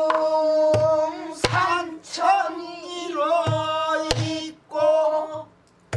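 Pansori-style singing of a danga in long, wavering held notes, with a handful of strokes on a buk barrel drum played with a stick.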